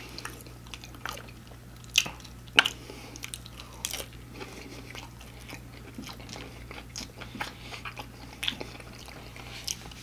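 Biting into and chewing crispy fried food, with a few sharp crunches in the first four seconds, then softer chewing and mouth sounds.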